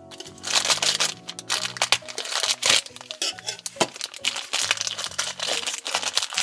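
Thin black plastic blind bag crinkling and crackling as it is handled and pulled open, starting about half a second in, over background music.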